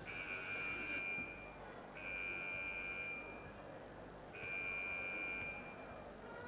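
Three long, steady, high-pitched whistle blasts, each about a second and a half long, the third starting about four seconds in.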